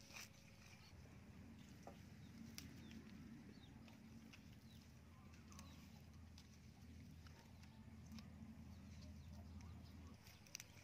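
Near silence: a faint low hum, with a few faint ticks and short faint chirps.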